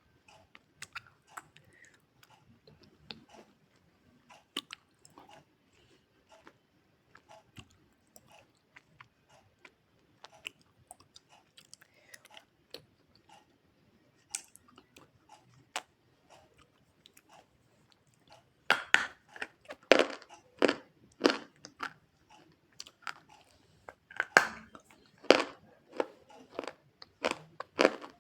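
Close-miked chewing of a hard, white, crunchy food. Faint small crunches and mouth clicks for most of the time, then loud, regular crunching bites about two-thirds in.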